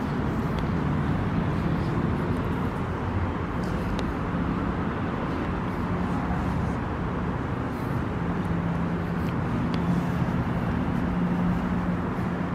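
Steady rumble of city road traffic, heard under the bridge deck, with a low engine hum that grows stronger in the second half.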